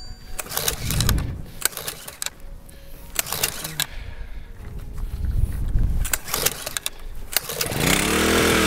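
A gas ice auger's small engine being pull-started: several knocks and cranking attempts, then it catches near the end and its pitch rises as it revs up.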